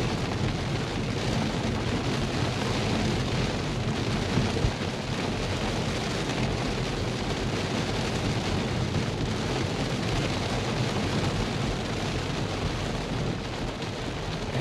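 Rain falling steadily on a car's roof and windshield, heard from inside the cabin, over a low rumble of tyres on a wet road.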